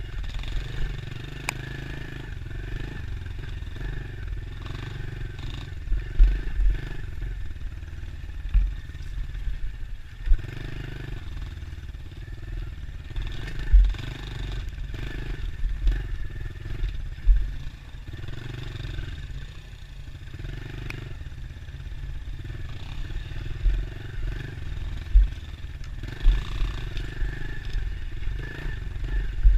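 Dirt bike engine ridden off-road, its revs rising and falling as the throttle is opened and shut. Several heavy low thumps come at irregular moments.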